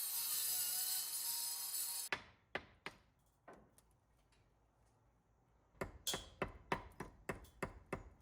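A loud, harsh rubbing tool noise, like grinding or sanding, cuts off about two seconds in; a few scattered knocks follow, then near the end a quick run of hammer blows, about three a second.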